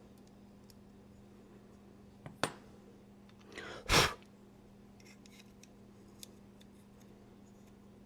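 Small metal and scale parts of a folding knife clicking and clacking as it is put back together by hand: faint ticks throughout, a sharp click about two and a half seconds in, and a brief rustle ending in a louder clack about four seconds in.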